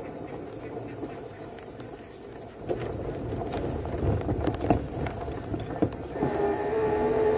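A rickshaw van riding over a rough dirt road, its frame rattling and knocking over the bumps. A steady motor hum is faint at first and grows louder near the end.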